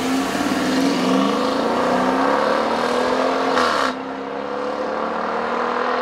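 2014 Dodge Durango R/T's 5.7-litre HEMI V8 at full throttle on a 0-60 mph run. The revs climb steadily, fall at an upshift about four seconds in, then climb again.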